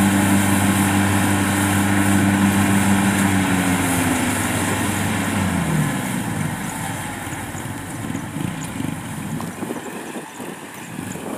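An engine running steadily, then dropping in pitch about four seconds in and dying away by about six seconds, leaving only a hiss of background noise.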